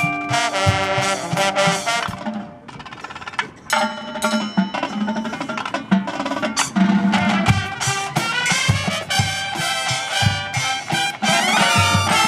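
Brass and percussion music playing, with rapid drum strokes under sustained horn chords and a brief quieter dip about two seconds in.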